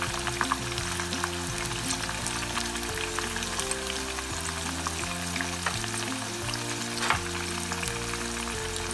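Sliced onions frying in hot vegetable oil in a pot: a steady, dense crackle and sizzle of oil bubbling around the onion rings. Background music plays underneath.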